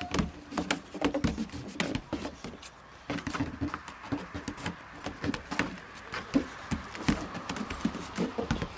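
Goat kids' hooves knocking and thudding on a small wooden playhouse roof covered with roofing felt as they jump and scramble about, several irregular hoof strikes a second.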